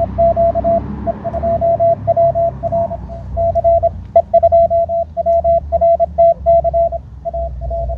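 Morse code (CW) signal received on a Malahit DSP2 shortwave receiver: a single tone keyed on and off in dots and dashes over low band noise, from an amateur station calling CQ.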